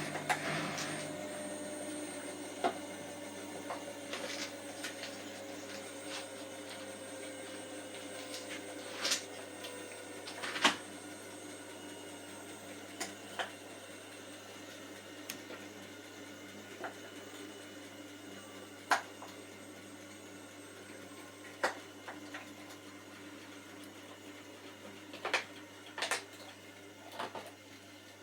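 Hotpoint washing machine in its spin, running with a steady hum and a motor tone that slowly falls in pitch as the spin eases off, growing gradually quieter. Short sharp squeaks come at irregular intervals, every few seconds; this is the squeak the owner has noticed during the spin for a few days.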